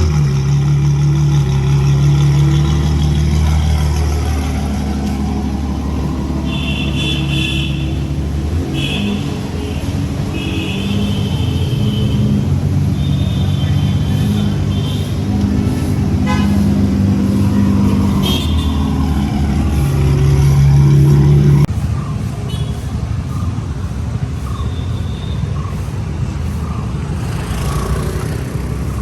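Ferrari 812 Superfast's V12 with a Novitec Inconel exhaust running at low revs in traffic. Its note shifts in steps and falls away sharply about 22 seconds in. Car horns honk on and off from about 6 to 15 seconds, and once more about 18 seconds in.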